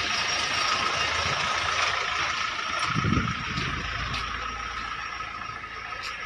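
Tipper truck's engine running nearby, swelling briefly about three seconds in, over a steady outdoor hiss.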